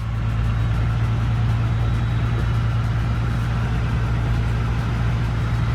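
Motor vehicle on the road: a steady low engine drone with road noise.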